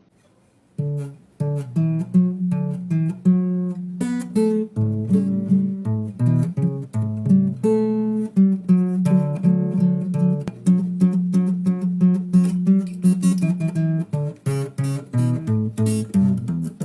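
Acoustic guitar playing a fingerpicked melodic solo, a steady stream of plucked notes over low bass notes, starting just under a second in.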